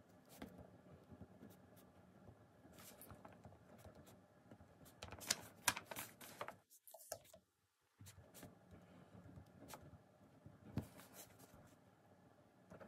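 Faint room tone with scattered light rustles and small clicks of things being handled, busiest about five to six and a half seconds in, broken by about a second of dead silence.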